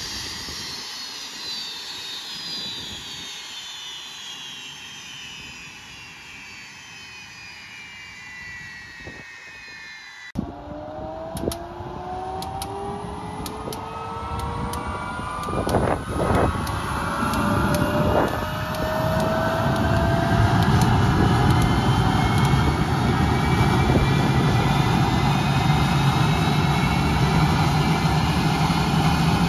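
TS-11 Iskra's single turbojet engine: a whine falling in pitch as it winds down, then about ten seconds in a fresh spool-up, its whine rising in pitch through a run of sharp ticks and settling into a steady loud run.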